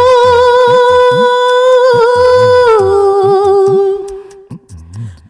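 A woman singing, holding one long note at the end of a line, stepping down to a lower note about three seconds in and fading out near the end. Low drum beats that bend in pitch sound underneath.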